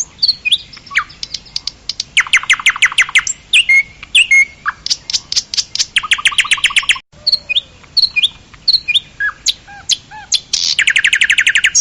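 Songbirds chirping and singing: fast trills of rapidly repeated notes, each about a second long, about two seconds in, around six seconds and again near the end, with scattered short chirps and whistles between them.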